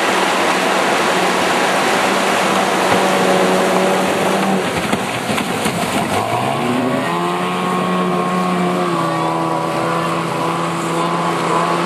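Outboard motor of a racing power dinghy running hard over the steady rush of rapids. About five seconds in the engine note fades, then climbs quickly in pitch and holds high.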